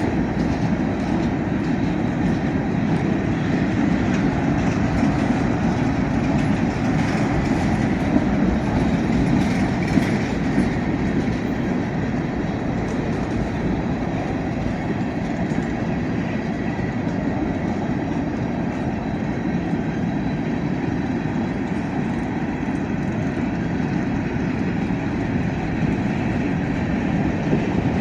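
Freight cars of a Union Pacific train rolling past, a steady rumble of wheels on rail with clickety-clack.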